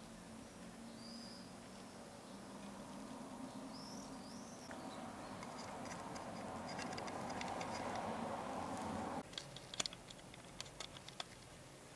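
Sharp little clicks and taps of hard plastic scale-model car parts, a dashboard and pedal assembly, being fitted into a plastic interior tub, loudest just after a hiss that grows louder and cuts off suddenly about nine seconds in. A few short high chirps about one and four seconds in.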